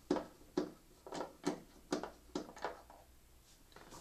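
Screwdriver turning screws out of a plastic LCD TV back cover: a run of sharp clicks, about two or three a second, that stops about three seconds in.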